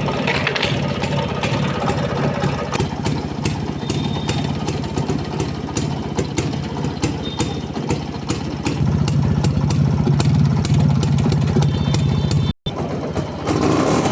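Rajdoot two-stroke motorcycle engine running through its original silencer, with a fast irregular crackle of firing. It gets louder for a few seconds past the middle, then the sound drops out for an instant near the end.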